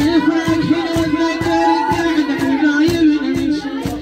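Iraqi latmiya lament: a woman's voice sings one long, wavering held note over a steady beat of about two strikes a second.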